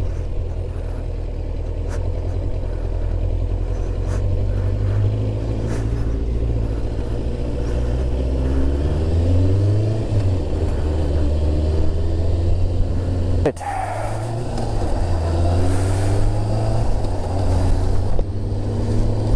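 Kawasaki ZX6R inline-four engine pulling along under way, with steady wind and road noise. The engine note rises as the bike accelerates, twice. The sound breaks off abruptly for an instant about thirteen and a half seconds in.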